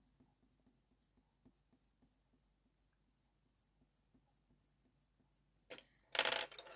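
Faint scratching of an ivory coloured pencil shading on hot-press watercolour paper, in many small strokes. Near the end comes a brief, louder rustle as the pencil is put down and another is picked up.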